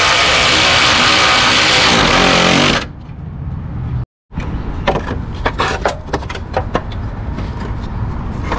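A power wrench runs continuously for about three seconds, driving a bolt in, then stops. After a brief gap, metal tools and parts clink sharply several times.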